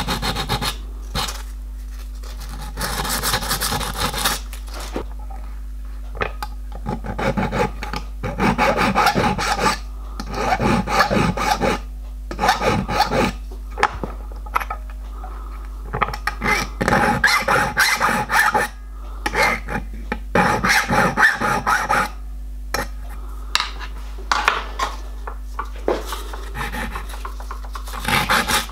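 Hand filing of a small steel part at a bench vise: runs of quick scraping file strokes with short pauses between them, over a faint steady low hum.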